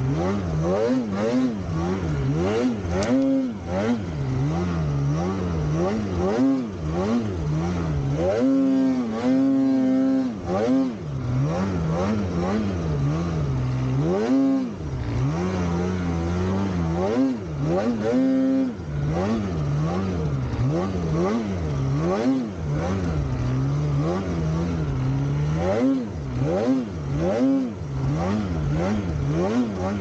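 Polaris Khaos 9R snowmobile's 850 two-stroke twin revving up and down over and over as the throttle is worked while riding, the pitch rising and falling about once a second, with a few longer held pulls at high revs.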